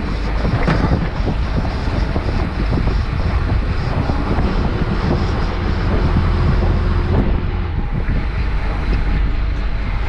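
Fishing boat's engine running steadily underway, with wind buffeting the microphone.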